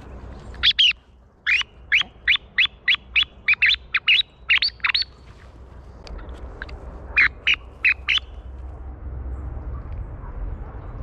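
A small bird calling close by: a fast run of about a dozen sharp, downward-sliding call notes, then after a short pause four more, over a low background rumble.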